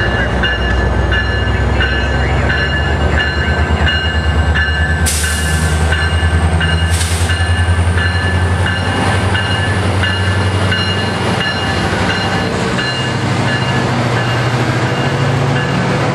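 Metrolink MP36PH diesel locomotive, its EMD 645 engine running with a steady low drone that changes pitch near the end, as it leads a commuter train past, with its bell ringing at a steady pace. Two short hisses come about five and seven seconds in.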